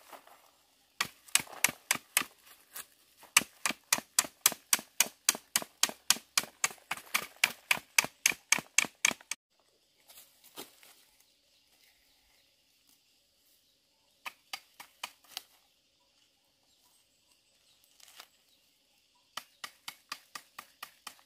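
Quick, even tapping, about five sharp knocks a second in two long runs with a pause between: sticks knocking against a clump of dug-up ant nest to shake the ant eggs loose.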